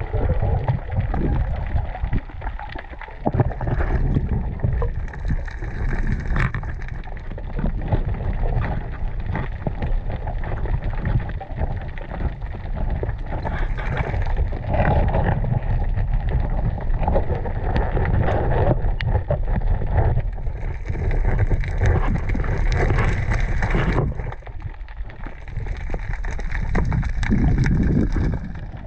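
Muffled underwater rumble and gurgling from water moving around a camera's waterproof housing as a freediver swims and works along the bottom, with occasional knocks and bubble sounds.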